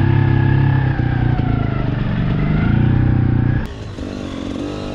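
KTM 300 EXC two-stroke enduro engine running under load as the bike weaves through a slalom, its pitch rising and falling with the throttle. About three and a half seconds in, the sound drops suddenly and turns into shorter revs that rise in pitch.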